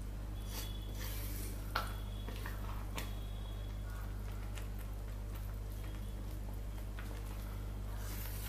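Wooden spoon stirring a thick jute-leaf sauce in an aluminium pot: soft wet squishing with light scattered clicks of the spoon on the pot and one sharper knock about two seconds in, over a steady low hum.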